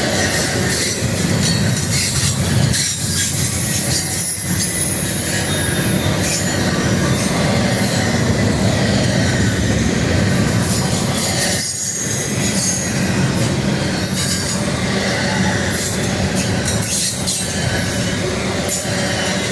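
A train passing close by: steel wheels running loud and steady on the rails, with thin high wheel squeal over the rumble and rattle of the cars.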